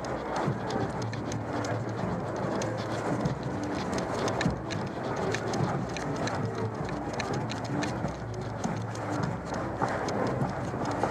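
Rapid, irregular clicking and rattling from a camera strapped to a walking dog as it jostles with each step, over the murmur of a street crowd.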